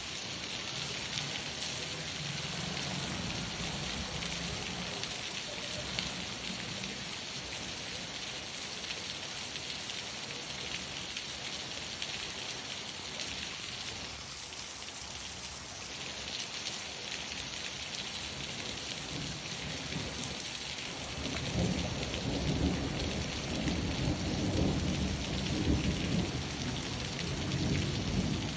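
Steady rain falling. About two-thirds of the way through, a low rumble of thunder builds and rolls on to the end.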